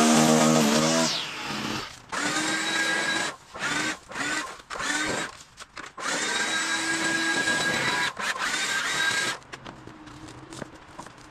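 A Honda UMK435 four-stroke line trimmer engine runs steadily, then winds down about a second in. This is followed by a small power-tool motor triggered in about five short bursts, each spinning up in pitch, holding steady and then cutting off sharply.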